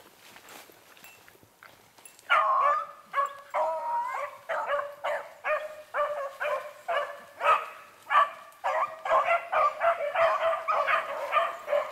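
Several beagles baying, starting about two seconds in with short, repeated barks that come faster and overlap more toward the end: a pack of rabbit hounds giving tongue while hunting a rabbit.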